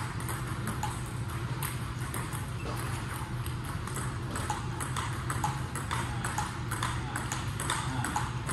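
Table tennis rally: the plastic ball clicking off rubber paddles and the tabletop, about two sharp clicks a second, over a steady low hum.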